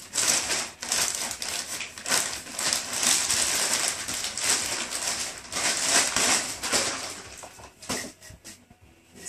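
Plastic bag crinkling and rustling as it is pulled off a shotgun, with a few light knocks near the end as the bare gun is handled.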